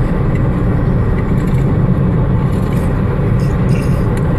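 Steady low rumble, with a few faint short clicks between about two and a half and four seconds in.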